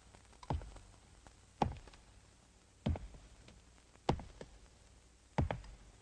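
Five sharp taps with a low thud in each, at a slow, even pace of about one every 1.2 seconds.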